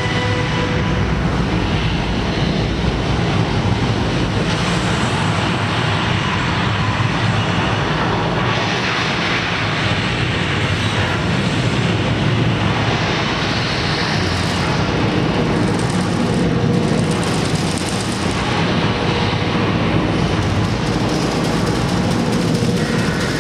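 Saturn V rocket launch roar played back over a theater's sound system, loud and steady throughout.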